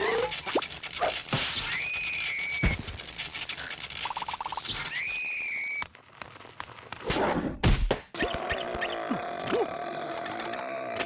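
Cartoon sound effects: two high whistle-like squeaks that rise and then hold, a short buzz, a couple of thuds about two-thirds of the way through, then a steady droning tone to the end.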